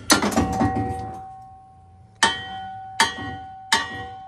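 Sledgehammer blows on a steel trailer hitch under a Ford F-150: one strike at the start, then three more from about two seconds in, roughly three-quarters of a second apart. Each leaves a ringing metallic tone. The hitch is being hammered loose to take it off the truck.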